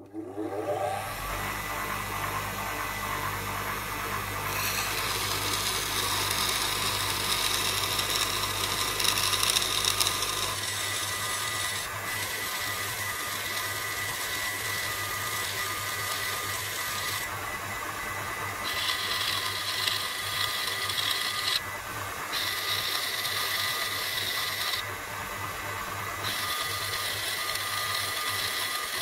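Wet-stone bench grinder with a reduction gearbox, its motor spinning up in the first second and then running with a steady hum. An old steel chisel is held against the slow, water-wetted grinding stone, adding a grinding hiss that comes and goes in several passes of a few seconds each.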